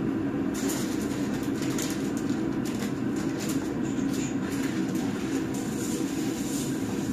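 Steady rushing water noise, with a brighter hiss joining about half a second in.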